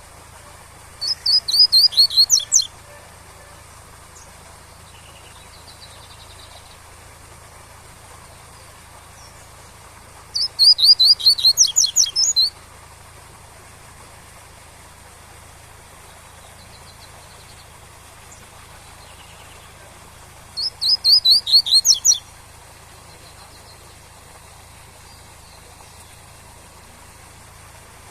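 Double-collared seedeater (coleiro) singing its 'tui-tui' song: three short bouts of rapid, high repeated notes about ten seconds apart. A steady rush of waterfall water runs underneath.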